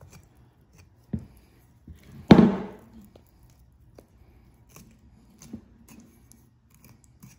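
Faint clicks and soft scraping of a small knife cutting the hide free around a deer's lips, with one louder thump about two seconds in.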